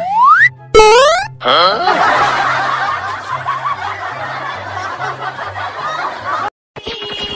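Edited-in comic sound effects: a rising whistle-like glide, a sharp hit with more rising glides just under a second in, then canned snickering laughter for about five seconds over a background-music bass line. It all breaks off about a second before the end.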